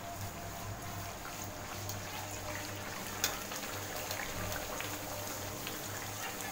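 Hot oil sizzling and crackling steadily in a steel kadai as a luchi deep-fries and puffs under a slotted spatula. There is a single sharp tick about three seconds in.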